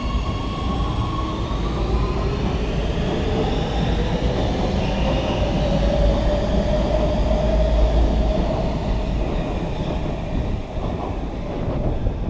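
MX3000 metro train's electric traction motors whining over a low rumble of wheels on rail, the whine rising in pitch over the first several seconds as the train gathers speed, then holding and fading. A few sharp clicks near the end.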